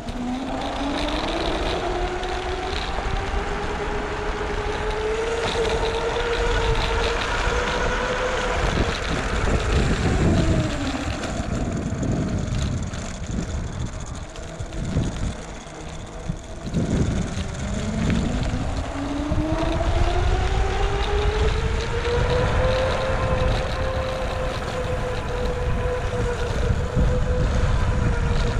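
A vehicle's motor whining. Its pitch rises smoothly as it speeds up over the first several seconds, drops about ten seconds in as it slows, and climbs again from about eighteen seconds. Wind rumbles on the microphone throughout.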